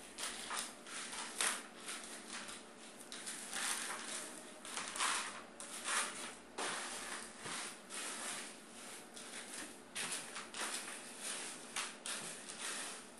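Litter scoop stirring and scraping through pebbly cat litter mixed with cassava flour in a plastic litter tray. It makes an irregular run of gritty rustling and scraping strokes.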